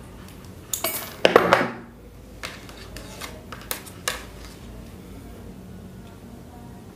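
Handling noise of electrical wire and small tools on a wooden workbench: a loud scraping rustle about a second in, then several light clicks and taps as the lead wire is joined to the motor's coil wire.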